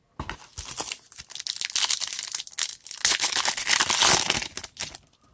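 Trading card pack wrapper crinkling and crackling as it is torn open and crumpled, loudest about three to four seconds in and stopping near the end.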